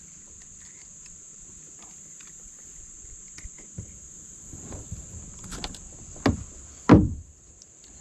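Steady high buzz of insects, likely crickets, with scattered clicks and knocks of handling gear and fish in a kayak; two loud short knocks come near the end.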